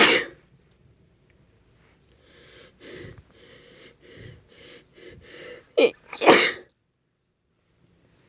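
A woman sneezing: one loud sneeze right at the start, then a few seconds of softer, halting breaths, then another loud sneeze about six seconds in.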